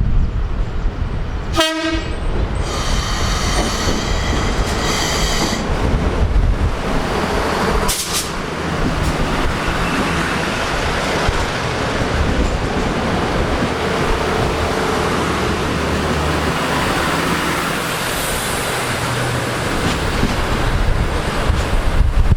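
Irish Rail 2600 Class diesel railcar horn: a brief toot about two seconds in, then two longer blasts over the next few seconds, followed by the steady rumble of the train running.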